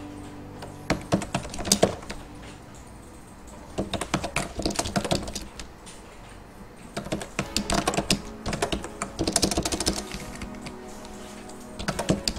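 Typing on a computer keyboard in several short bursts of keystrokes with pauses between them, over soft background music.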